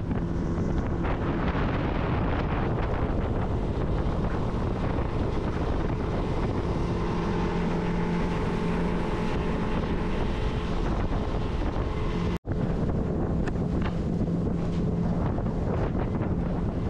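Wind buffeting a microphone on an open boat over the steady hum of a boat motor. The sound cuts out for an instant about twelve seconds in.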